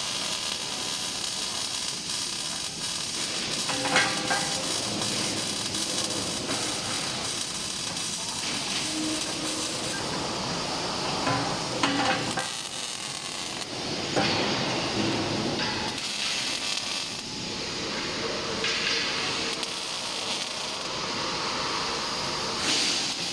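Robotic welding arc hissing and crackling steadily, with a few sharp clicks.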